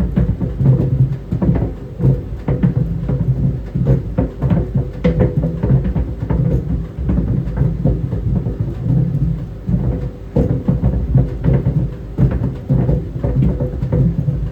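Tennis balls tumbling in a running clothes dryer: irregular thumps and knocks against the drum over the dryer's steady low rumble.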